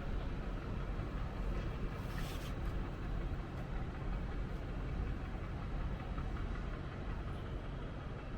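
Split air conditioner outdoor unit running with a steady low mechanical rumble, the noise of a failed fan motor bearing. A brief hiss comes in about two seconds in.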